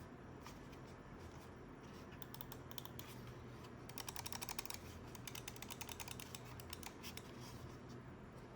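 Rapid runs of light, sharp clicks, sparse at first, then dense and fast through the middle, loudest about four seconds in.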